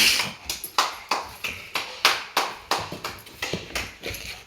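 A package being opened by hand: a steady run of short, sharp tearing and crackling strokes, about three a second.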